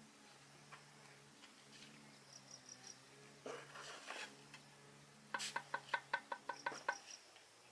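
A rapid run of about a dozen sharp, ringing taps on something hard, over a steady low hum.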